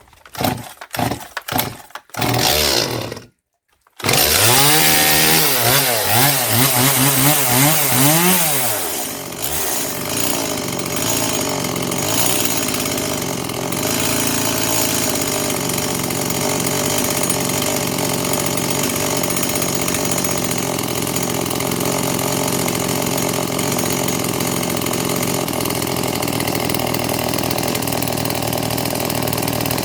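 Stihl MS 180 two-stroke chainsaw, on its first start after a crankcase rebuild: a few short bursts as it is pulled over, then the engine catches about four seconds in. It revs up and down unevenly for several seconds, then settles into a steady run.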